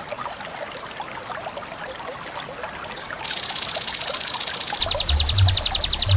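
A fast, evenly pulsed, high, insect-like trill, more than ten pulses a second, starting loudly about three seconds in over a faint crackly background.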